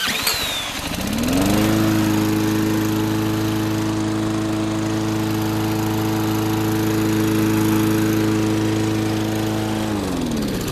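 Push lawnmower engine spun over by a power drill with a socket on the flywheel nut. It catches about a second in, rising in pitch, runs at a steady speed, then winds down near the end.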